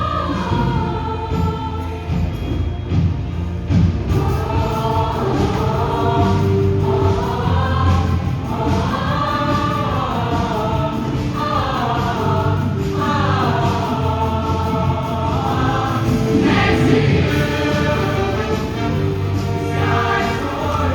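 Show choir singing in harmony over instrumental accompaniment, with the sung phrases growing fuller about four seconds in.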